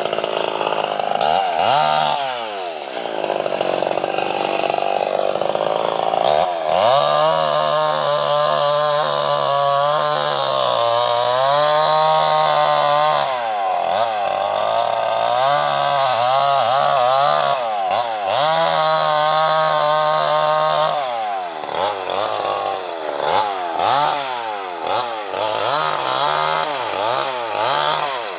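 Two-stroke chainsaw cutting mahogany, its engine repeatedly revving up to full speed and dropping back. It holds high revs for several seconds at a time, then gives quick short blips near the end.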